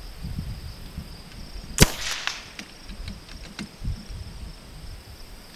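A single .22 LR rimfire rifle shot about two seconds in, followed by a few faint clicks, over a steady high insect buzz.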